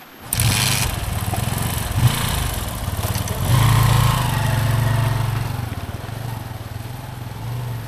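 Kawasaki motorcycle engine coming in suddenly about a third of a second in, revving as the bike pulls away. It is loudest around the middle, then fades as it rides off.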